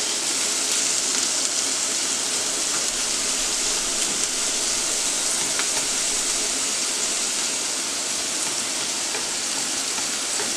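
Steaks and sliced onions sizzling steadily in a frying pan as the onions are sautéed, with a few light clicks of a metal utensil against the pan.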